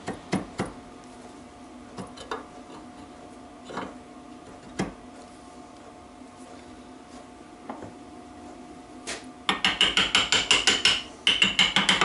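A few light clicks and knocks of metal parts being handled, then from about nine and a half seconds in, quick runs of light metallic hammer taps on the crankshaft assembly, about seven a second, in two bursts with a short break.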